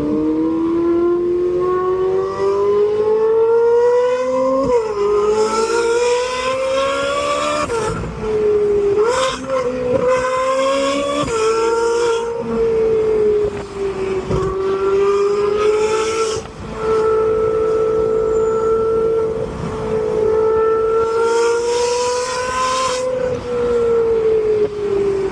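Ferrari 458 Italia's naturally aspirated 4.5-litre V8 running at high revs. Its pitch climbs and drops sharply several times, then holds fairly steady with a slight waver.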